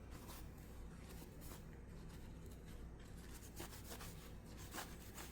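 Faint rubbing and a few light, scattered clicks: the steel frame of a Husqvarna Model 1907 pocket pistol being handled and wiped down during cleaning, over a low steady hum.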